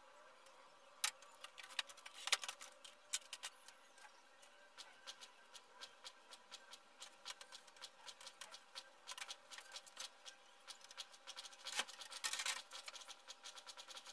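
Light clicking and clattering of tools and small parts being handled on a workbench, with a few sharper knocks near the start and a louder cluster near the end, over a faint steady hum.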